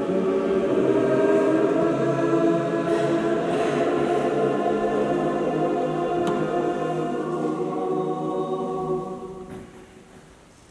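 Mixed choir singing in a reverberant church, ending on a long held chord that dies away about nine seconds in, the echo trailing after it.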